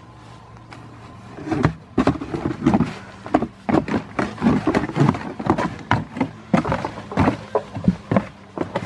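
Goat kid scrambling and wrestling inside a cardboard box, the cardboard knocking, scraping and crinkling in irregular bursts from about a second and a half in.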